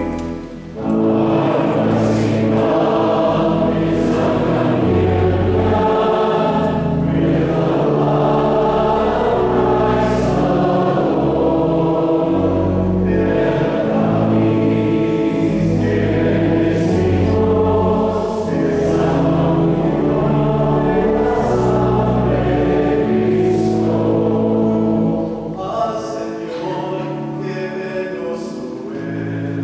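A man singing a sung church piece over held accompaniment chords that change in steps, a little softer near the end.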